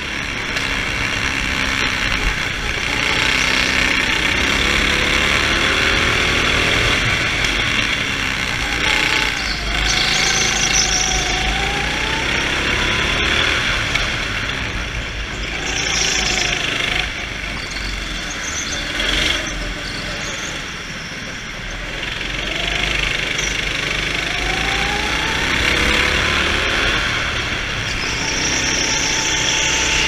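Go-kart engine heard from the driver's seat, revving up on each straight and dropping off into the corners, over and over, under hard throttle. A few brief high squeals from the tyres sliding on the smooth indoor floor.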